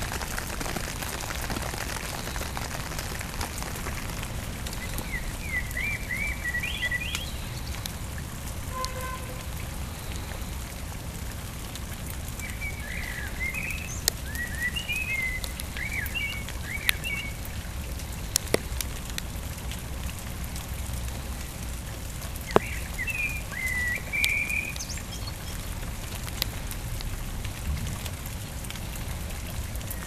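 Steady rain falling, with the odd louder drop striking close by. A small bird chirps in short quick runs three times.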